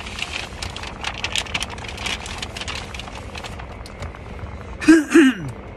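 A paper bag crinkling and rustling as it is handled, over a low steady hum inside a car, easing off after about three seconds. About five seconds in, two short, loud vocal sounds from a man, falling in pitch, are the loudest thing.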